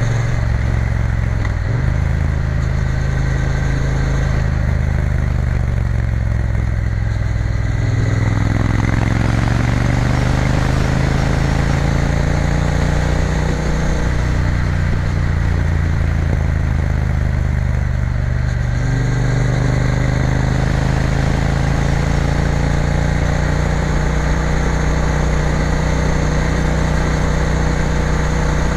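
Triumph Bonneville T120 parallel-twin engine running under way. Its note dips and climbs again several times, rising about eight and again about nineteen seconds in.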